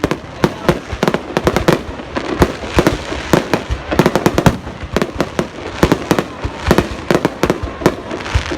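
Fireworks display: many aerial shells bursting in rapid, irregular succession, several sharp bangs a second with no pause.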